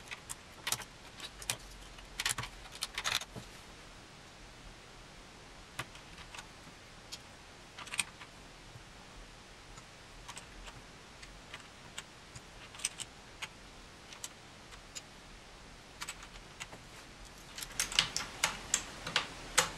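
Plastic keycaps being pressed back onto a Sun Type 5 keyboard: scattered sharp clicks and taps, a cluster a couple of seconds in, single clicks through the middle, and a quicker run of clicks near the end.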